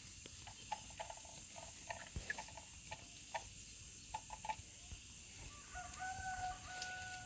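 Chickens clucking in short calls, then a rooster crowing in one long call starting about six seconds in.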